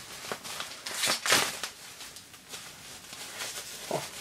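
Bubble wrap being handled and pulled open, rustling and crinkling irregularly, with the loudest crinkle about a second in.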